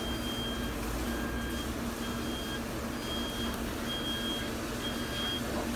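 Electronic beeper sounding about six short high beeps, roughly one a second, over a steady low hum.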